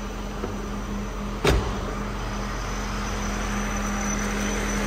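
Mercedes-Benz 420 SEL's 4.2-litre V8 idling steadily, smooth and quiet. A car door shuts once, about a second and a half in.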